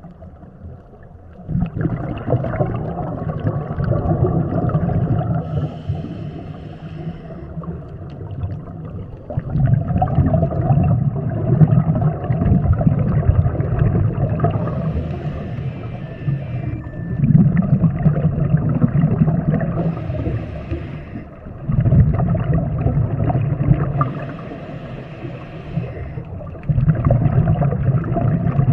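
A scuba diver breathing through a regulator underwater, heard close: long bubbling rumbles of exhaled air lasting several seconds each, separated by brief quieter gaps and short hisses of inhalation.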